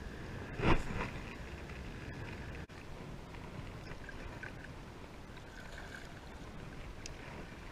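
Kayak paddling: water lapping and splashing from the paddle over a steady wash of wind and water on the microphone. A single loud knock against the kayak comes about a second in.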